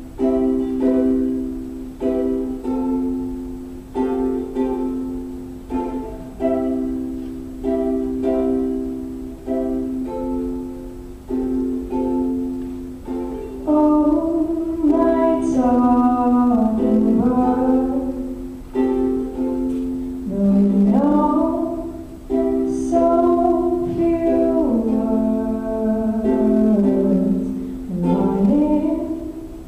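Acoustic performance of a song: a plucked string instrument plays a chord about once a second, and a woman's voice comes in singing the melody about fourteen seconds in, over the continuing chords.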